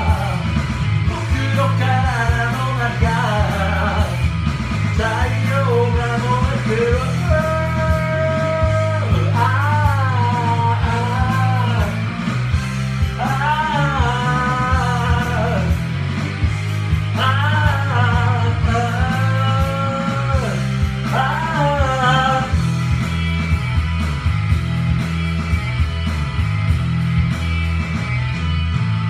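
A man singing karaoke over a rock backing track with guitar, drawing out long wavering held notes. About two-thirds of the way through his voice stops and the band backing plays on alone.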